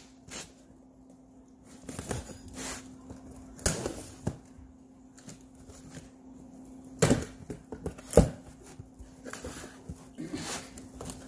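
Cardboard shipping box being handled and pulled open by hand: scattered short scrapes and taps, the sharpest knocks about seven and eight seconds in, over a faint steady low hum.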